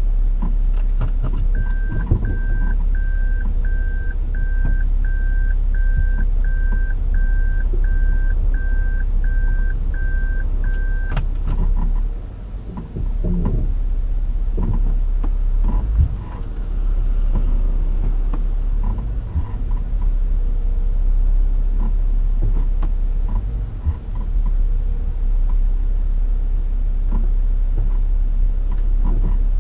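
Toyota Crown (S180 'Zero Crown') on the move, with a steady low drone and rumble that the owner suspects comes from a worn left rear hub bearing. A series of short, evenly spaced beeps, about one and a half a second, sounds over it for the first third, stopping with a click.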